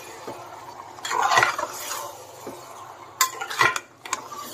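A metal spatula stirring chicken and onion masala in a pressure cooker. A scraping stir comes about a second in, then a few sharp clinks of the spatula against the pot's side near the end.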